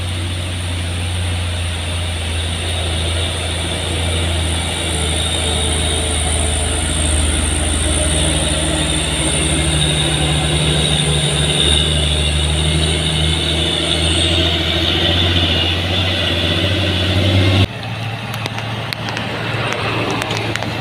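Loaded heavy truck's diesel engine pulling slowly up a steep grade under load, a deep steady drone growing louder as it passes close, with a steady high whine that stops about 14 seconds in. About 18 seconds in it cuts abruptly to a quieter engine sound of another truck approaching.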